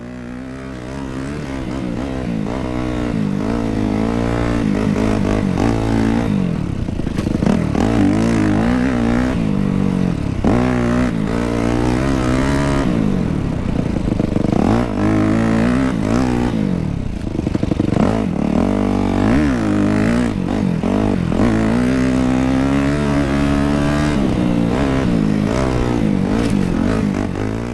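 Motorcycle engine revving up and down over and over, as when being ridden, rising in level over the first few seconds.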